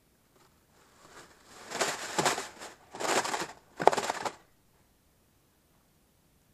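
Thin plastic bag crinkling in three bursts with a caught fish inside it, the last burst with a sharp click.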